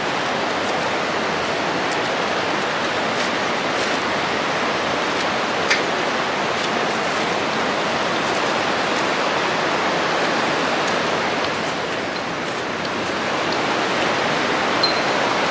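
Mountain river rushing over rocks in rapids, a steady unbroken rush of water.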